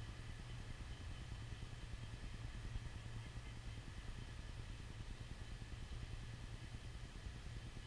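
Steady low wind rumble on the camera's microphone, with a faint hiss above it.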